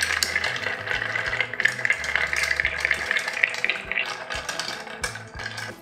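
Bar spoon stirring ice and liquor in a glass mixing glass: a continuous quick clinking rattle of ice cubes against the glass.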